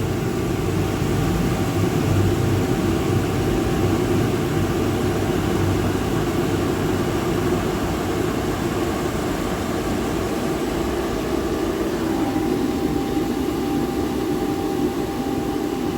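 Commercial boiler burner firing with a steady roar, moving to low fire; about twelve seconds in the sound shifts lower and a steady hum comes in. At this low fire the burner is short of air, which the engineer reads as the reason for its sooting.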